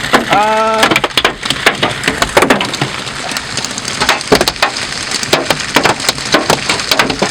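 Large hailstones hammering a vehicle's roof and windows from inside the cabin: a dense, irregular clatter of sharp knocks. A short voiced call is heard about half a second in.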